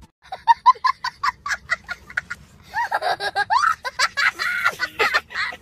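A child laughing hard: a quick run of short, high-pitched laughs for about two seconds, then longer laughs that swoop up and down in pitch.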